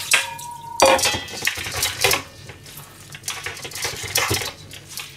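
Stainless steel bowls and a mesh colander clattering and knocking against each other and the steel sink, with a metal bowl ringing briefly at the start.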